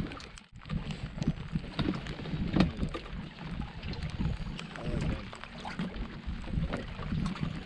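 Wind buffeting the microphone and water lapping against a drifting fishing boat's hull, with scattered sharp ticks.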